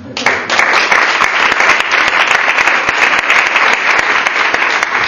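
Audience applauding the end of a talk. The clapping breaks out suddenly just after the start and keeps up steadily.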